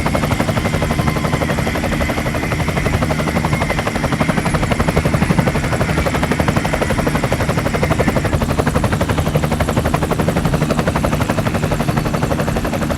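EC-135 scale radio-controlled model helicopter in flight: the rotor chops rapidly and steadily, with a thin high whine that drops out about two thirds of the way through. The sound cuts off abruptly at the end.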